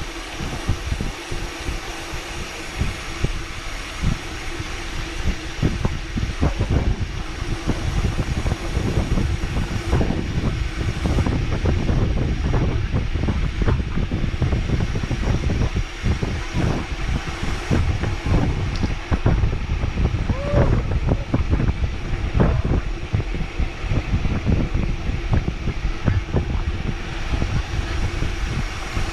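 Wind buffeting the microphone of a bicycle rider on a downhill run, with steady rushing and many small knocks and rattles from the bike over the road.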